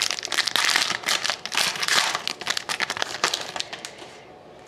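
Trading card pack wrapper crinkling and crumpling as it is torn open, with many quick crackles; it dies away near the end.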